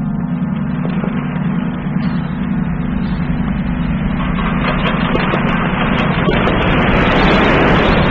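Electronic drone music: a steady low drone under a dense, noisy texture that thickens and grows louder about halfway through, with scattered sharp clicks near the end.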